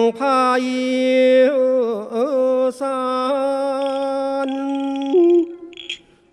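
Thai khap sepha recitation: one voice chanting in long held notes that bend and waver in ornamented glides. It drops to a softer, lower note about five seconds in and fades out near the end.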